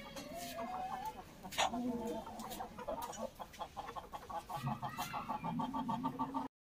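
Aseel chickens clucking: scattered low calls, then a fast, even run of short clucks in the second half, with a few sharp clicks between. The sound cuts off suddenly just before the end.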